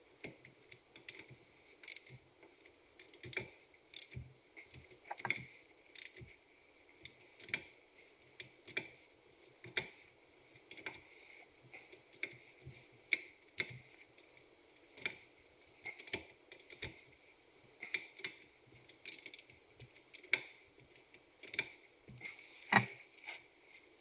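Irregular light metallic clicks and clinks, about one or two a second, from hand tools working on a wheel hub; the sharpest clink comes near the end.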